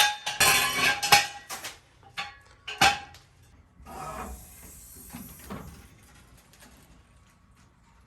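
Metal objects clattering and clanking, with a sharp clank about a second in and another just under three seconds in, then a brief soft rushing noise around four to five seconds in.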